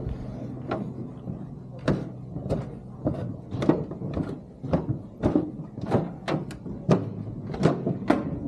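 Footsteps going down an outdoor metal stairway, each step a sharp knock, about two a second.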